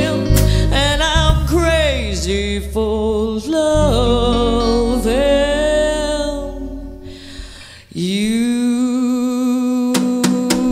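A woman singing with a live band of drums, electric guitar and bass guitar, her voice wavering on held notes. The band thins out and the music dips about seven seconds in, then a long steady note swells in about a second later.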